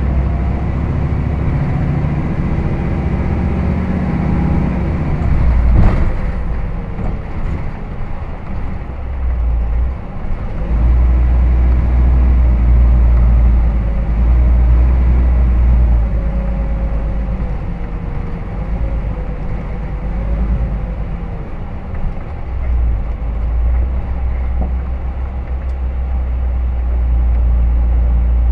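Hino Rainbow HR diesel city bus running, heard from inside the cabin: a steady low engine and road rumble with a shifting whine, briefly easing off a couple of times. A single sharp knock stands out about six seconds in.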